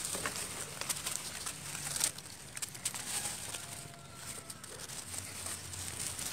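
Dry bamboo stems and leaves rustling and knocking against each other as they are pushed through, with scattered sharp clicks and a louder knock about two seconds in.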